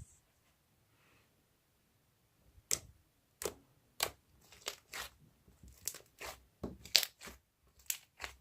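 Slime worked and folded by hand, quiet at first and then giving an irregular run of sharp clicking pops, two or three a second, as trapped air bubbles burst.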